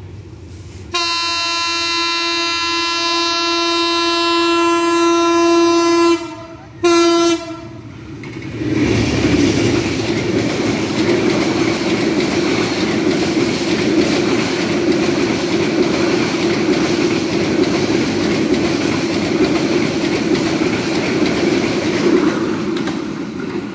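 Hyundai Rotem diesel-electric locomotive sounding its horn: one long blast of about five seconds, then a short one a second later. The train then passes close by, its coaches' wheels clattering steadily over the rails until near the end.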